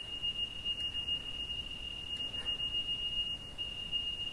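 Leica Rod Eye 160 laser-level detector giving a high-pitched rapid beeping. The fast beeps signal that the detector sits above the rotating laser's beam, so the staff must be lowered toward on-grade.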